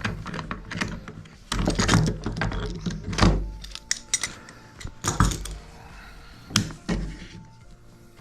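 Clamps being loosened and lifted off a glued wooden picture frame in a shop-made frame clamp: a string of wooden thunks and the clatter of clamp parts, loudest about two and three seconds in.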